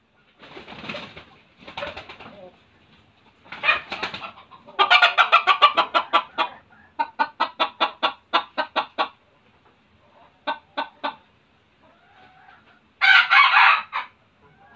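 Red junglefowl rooster calling in fast runs of short clucks, about seven a second, with a louder harsh call of about a second near the end. Three rougher, noisier sounds come before the runs.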